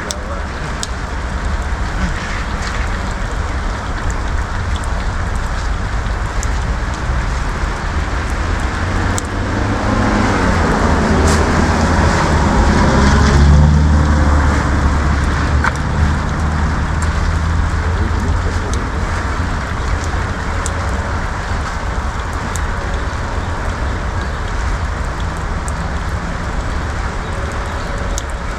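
Gasoline engine of a rented stump grinder running steadily, with a swell of louder, rougher load from about 10 to 16 seconds in as the cutter wheel works into an old oak stump. Rain is falling throughout.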